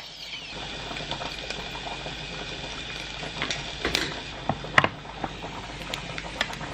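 Spam sizzling and hissing loudly as it cooks pressed inside a closed electric waffle maker, with a few sharp pops and clicks about four to five seconds in.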